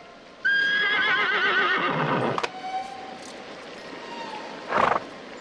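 A horse whinnying: one long, quavering call that starts about half a second in and falls away after about two seconds. A short, loud, noisy burst follows near the end.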